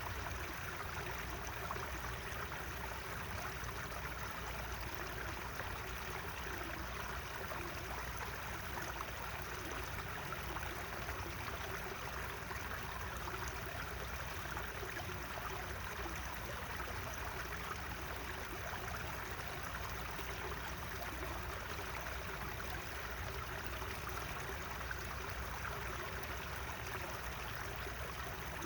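Water running steadily in a natural stream, an even rushing and gurgling with no breaks.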